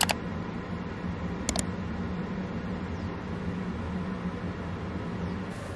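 Steady background hiss with a low hum underneath, and one short click about a second and a half in.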